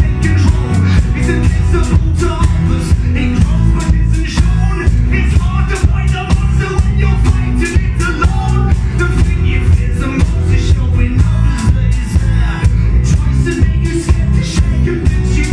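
Loud live rock music: a band with a steady drum beat and heavy bass, with some singing.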